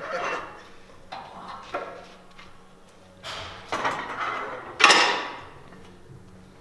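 Iron weight plates being loaded onto a barbell: a series of metal clanks and scrapes as plates slide onto the bar sleeve, the loudest clank about five seconds in, ringing briefly after it.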